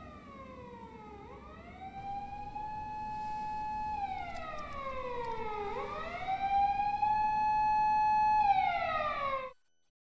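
A siren wailing: a single pitch that holds, slides slowly down, then swings quickly back up, twice over, growing louder until it cuts off abruptly near the end.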